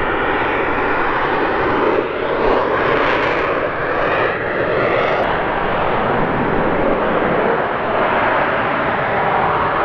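Small experimental rocket's engine firing under thrust as the rocket descends toward a landing: a loud, steady rushing noise, with a brief higher swell a couple of seconds in.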